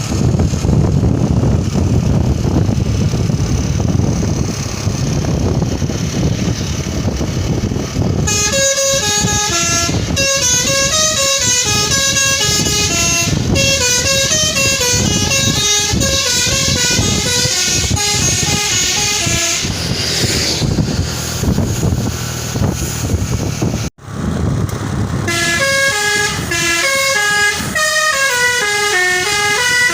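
Intercity bus telolet horn, a set of tuned air horns playing a quick melody of many short stepping notes over the bus's engine and road noise. For the first eight seconds or so only the engine and road noise are heard. The melody breaks off around twenty seconds in and starts again after a brief gap near the end.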